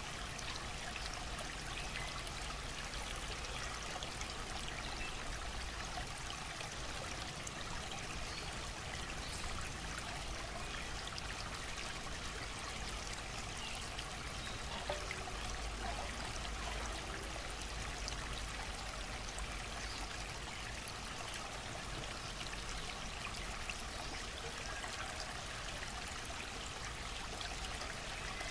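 Water trickling and running steadily, with fine splashing.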